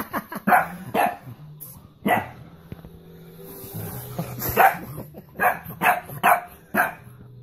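Small dog barking in short, sharp barks, about eight of them at irregular intervals: protective barking at someone pretending to hurt a baby.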